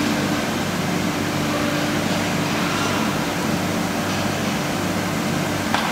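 CNC nesting router running: a steady spindle whine over an even machine hum. A single short click comes near the end.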